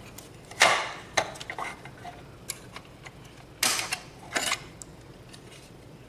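Plastic clicks and clatter as the black plastic shroud over the empty second processor bay of an HP ProLiant DL360 G7 server is unclipped and lifted out of the metal chassis. There are a few short knocks, the loudest about half a second in and others around three and a half and four and a half seconds in.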